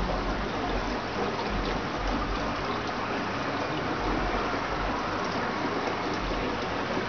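Steady trickling and splashing of water falling from an aquarium's overhead tray filter into the tank below.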